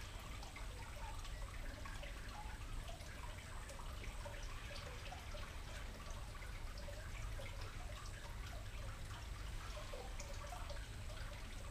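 Faint, steady trickling and dripping of water from a garden water feature, over a low hum.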